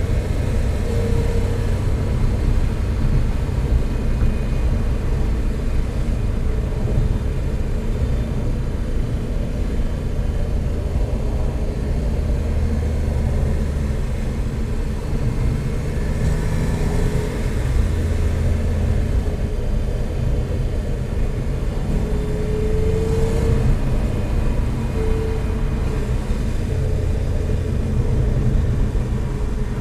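Porsche sports car cruising at steady highway speed, heard from inside the cabin: a steady low engine drone mixed with tyre and road noise.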